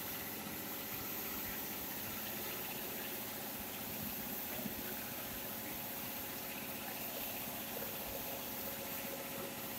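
Steady machinery hum with an even hiss and a few faint held tones, unchanging throughout.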